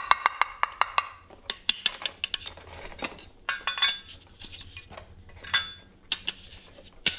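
Fingers and fingernails tapping and clicking on a Rigid 360-series 6-inch round LED off-road light: many quick, irregular taps on its lens, finned metal housing and plastic side pieces, a few with a short ring. The tapping tests the build: metal housing, with plastic only at the sides.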